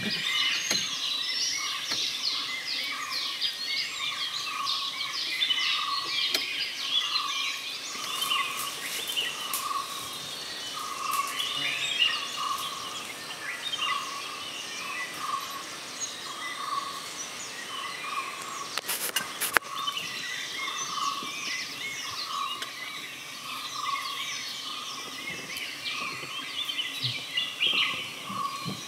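A chorus of many birds chirping in a dry forest, with one note repeated about once a second under the chirps. A brief crackle comes about two-thirds of the way through.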